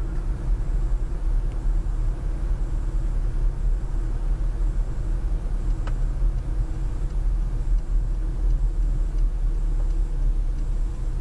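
Steady low rumble of road and engine noise inside a moving 2013 Honda Civic's cabin, with a single short click about six seconds in.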